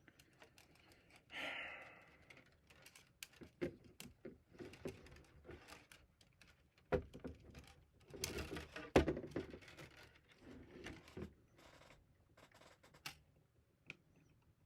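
Hand-spooling 3D printer filament onto an empty plastic spool: irregular light clicks, rustles and knocks of plastic and filament being handled, with two sharper knocks about seven and nine seconds in.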